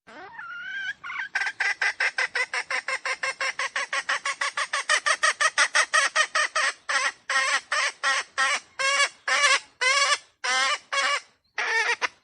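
Wild red junglefowl calling: a fast run of short clucking notes, about seven a second, slowing to longer, spaced notes for the last few seconds.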